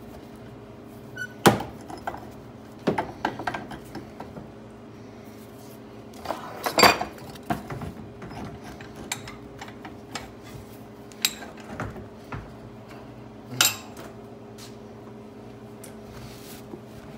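Hand tools and the metal body of a lever arm shock absorber clinking and clanking on a workbench: scattered sharp metallic knocks, the loudest about seven seconds in, over a steady low hum.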